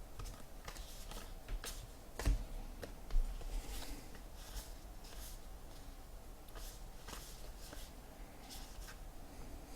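Baseball trading cards being handled and slid over one another as a pack is flipped through: faint, irregular swishing and scraping, with a sharp knock about two seconds in.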